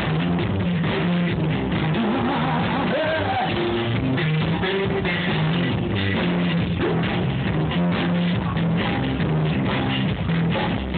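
Rock music with guitar, a steady drum beat and some singing, playing for dancing.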